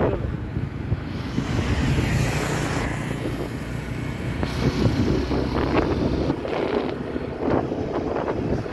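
Steady rushing roar of wind buffeting the microphone while moving along a road, with road and traffic rumble underneath.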